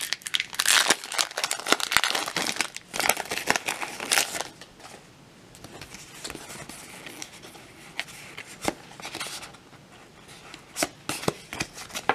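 A foil trading-card booster pack wrapper is torn open and crinkled for about the first four seconds. After that there is a quieter rustle with a few light clicks as the stack of cards is handled.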